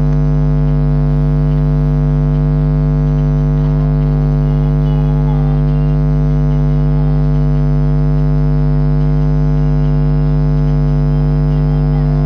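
Loud, steady electrical hum: a buzzing drone made of many even tones that never changes, drowning out everything else in the recording.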